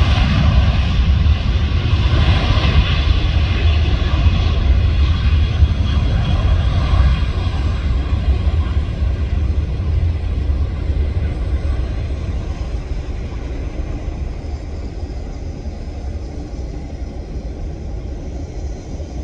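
Airbus A350-900's Rolls-Royce Trent XWB turbofans at takeoff thrust: a loud, deep rumble with jet roar as the airliner rolls, rotates and lifts off. The sound slowly fades over the second half as the aircraft climbs away.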